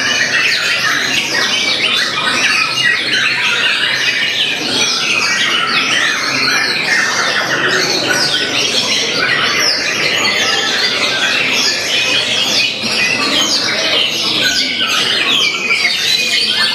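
White-rumped shama (murai batu) singing without a break, a dense rush of quick, varied notes and harsh calls, the mimicked "isian" phrases that contest songbirds are trained to pour out.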